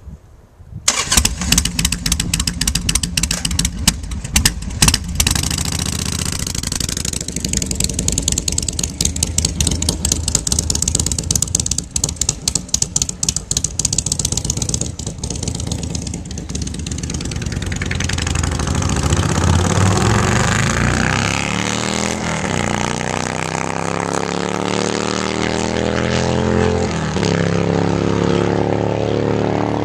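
Harley-Davidson Sportster chopper's V-twin engine starting about a second in, then running loud with rapid uneven firing pulses and throttle blips. Later the motorcycle rides off, the engine note rising and falling in pitch as it is revved through the gears.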